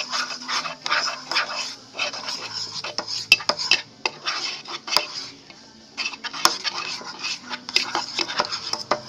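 A stick stirring slime in a container, scraping and clicking quickly against its sides and bottom, with a short pause a little past the middle.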